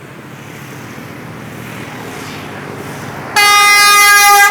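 A vehicle approaching with its road noise growing, then about three seconds in a bus's telolet horn, a musical multi-tone air horn, sounds loudly on one held note.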